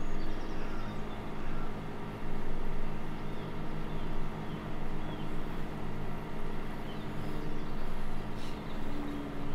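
A sailing yacht's engine running steadily at a constant pitch while the boat motors along.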